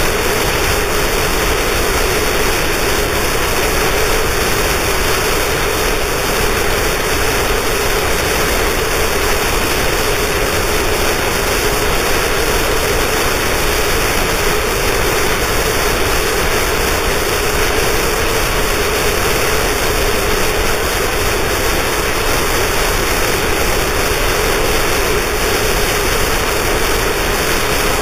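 Harsh noise music: a loud, unbroken wall of static-like noise with a steady drone in the low middle and no rhythm or change.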